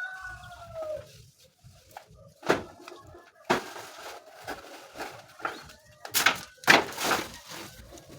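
Chickens calling, with a falling call at the start. Several sharp knocks or clatters come in between, the loudest two about two-thirds of the way in.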